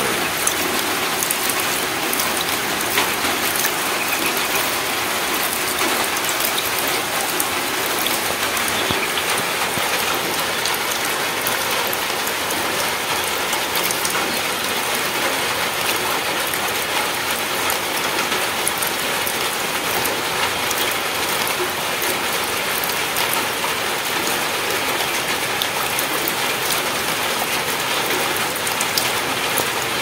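Light drizzle falling steadily on a puddle and wet ground, an even patter of many small drop ticks.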